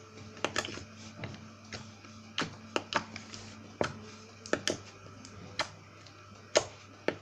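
Super fluffy slime being squeezed and stretched by hand, giving off irregular sharp clicks and pops, about fifteen in a few seconds, over a faint steady hum.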